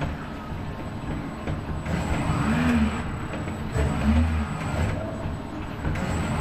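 ABB industrial robot arm's servo motors whining as the arm swings back and forth, the pitch rising and falling with each move, over a steady low machine hum.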